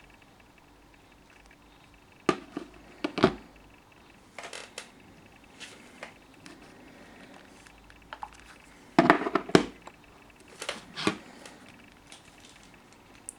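A series of scattered knocks and clicks over a faint steady background, in clusters about two to three seconds in and again about nine to eleven seconds in, with no ringtone or alarm tone sounding.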